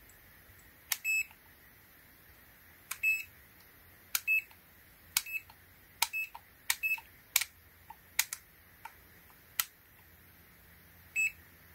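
Digital clamp meter's rotary range dial clicking from position to position, the meter giving a short high-pitched beep after most of the clicks, about eight beeps in all.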